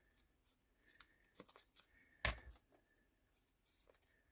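Scraps of paper ephemera being handled and shuffled on a journal page: faint scattered rustles and soft taps, with one louder rustle a little over two seconds in.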